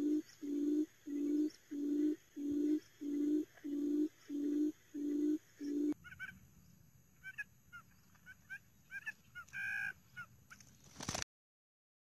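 Quail calling: a low hooting note repeated about twice a second, ending abruptly about six seconds in. Short high chirps follow, with a louder call near the end, before the sound cuts off.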